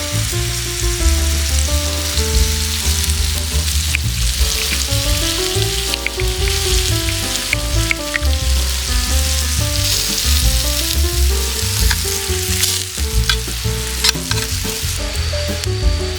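Food sizzling in butter on an iron griddle, a steady frying hiss with scattered sharp crackles and pops.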